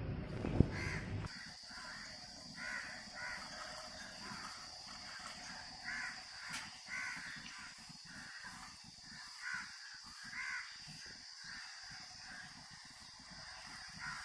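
Crows cawing over and over, faintly, with a steady high-pitched whine underneath. A low rumble at the start stops after about a second.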